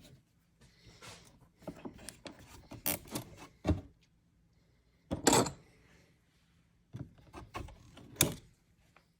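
Scattered knocks, clicks and rubbing of parts and panels being handled, with two louder knocks about five and eight seconds in.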